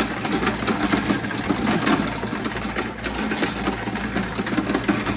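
Ice dispenser running: a steady mechanical whir of its motor with ice cubes clattering out in a rapid stream of small clicks.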